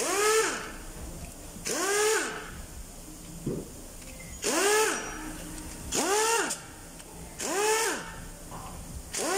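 A power tool run in six short bursts, roughly one and a half seconds apart, loosening a V6 engine's cylinder head bolts. Each burst is a whine that rises and falls, with a hiss.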